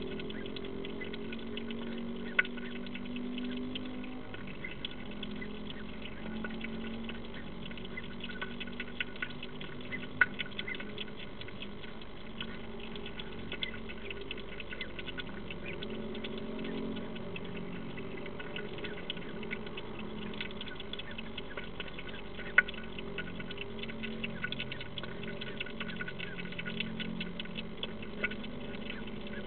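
European hedgehog feeding with its snout in a ceramic dish: a dense, irregular run of small mouth clicks and crunches, with a few louder clicks, over a steady low hum.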